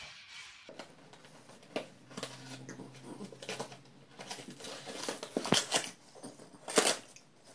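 French bulldog tearing and chewing a cardboard box: a run of ripping and crinkling cardboard, with two louder tears near the end.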